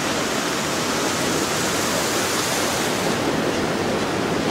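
Steady rushing noise of wind and sea surf on an open beach. The highest part of the hiss drops away about three seconds in.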